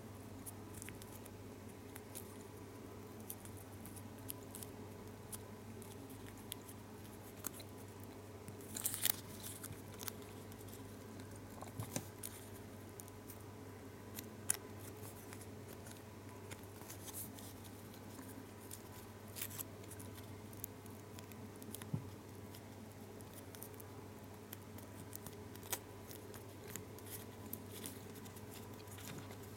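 A small foil gum wrapper being folded and creased between fingertips: faint scattered crinkles and clicks, with a small cluster of them about nine seconds in.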